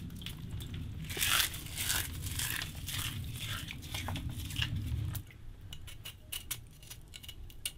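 Plastic zip-top bag crinkling and eggshell pieces crunching as they are crumbled between the fingers, in a dense run of crackles that thins to scattered clicks about five seconds in.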